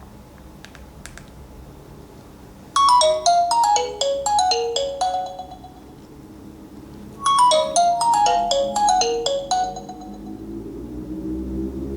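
Nokia 8000 4G ringtone: a short melody of quick, falling bell-like notes, played twice with a pause between. It follows two faint clicks, and near the end a new tone begins, rising in pitch.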